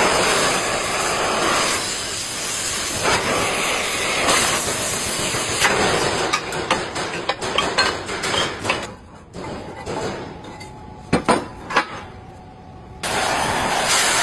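Stick-welding arc crackling steadily, breaking off about six seconds in. Then comes a run of light metallic clicks and taps, with two sharper knocks a few seconds later, before the arc crackle starts again near the end.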